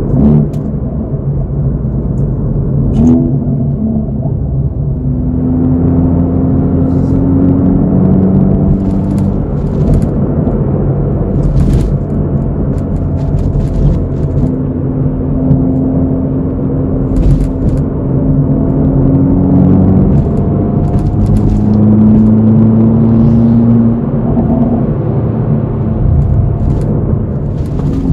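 Hyundai Veloster N's turbocharged 2.0-litre four-cylinder engine and exhaust, heard from inside the cabin while driving. The drone rises slowly in pitch as the car gathers speed and drops back, several times over. A few short clicks sound over it.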